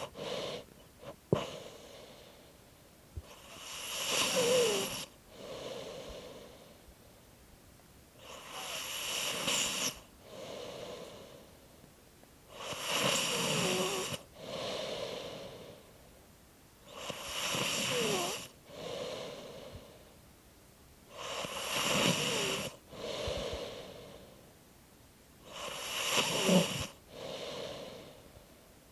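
A person snoring in a slow, even rhythm: six loud inhaled snores about every four and a half seconds, each followed by a softer exhale, with quiet squeaky whistles in the breath. There is a single sharp click about a second in.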